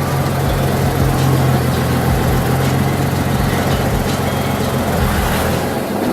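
A vehicle engine idling steadily, with a low, even drone.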